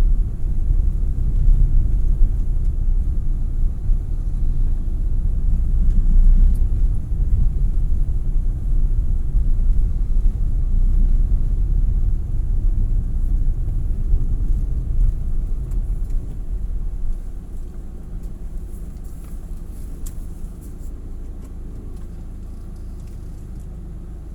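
Steady low rumble of a vehicle on the move, road and engine noise, easing off and turning quieter about two-thirds of the way through.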